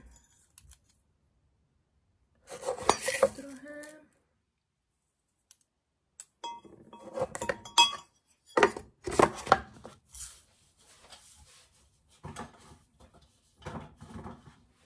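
A metal mesh tea strainer and spoon clinking against a ceramic mug as loose-leaf tea is prepared, with kitchenware clattering in several separate bouts.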